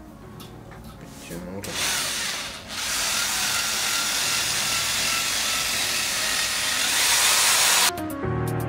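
Electric drill running steadily, spinning a mandrel that winds 0.8 mm jewelry wire into a tight coil (spring) for Bismarck chain links. It starts about two seconds in, dips briefly, and stops abruptly near the end.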